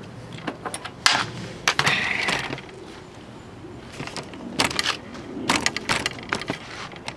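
Hand tools and metal parts clicking and clinking against the lawnmower's carburetor and engine as a screw is worked out. There is a run of sharp clinks, with a longer scraping rustle about two seconds in.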